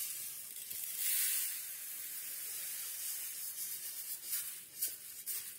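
Roasted rice grains pouring and sliding out of a metal pan onto a steel plate, making a steady hiss of many small grains landing, with a few sharper rattles near the end.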